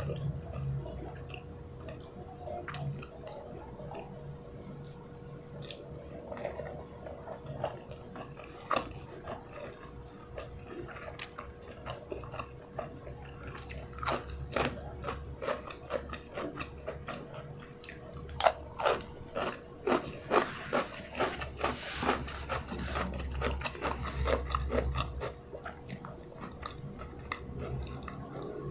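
Close-miked chewing and biting of fried chicken and rice eaten by hand, with wet mouth clicks and crunches that come thicker and louder in the second half.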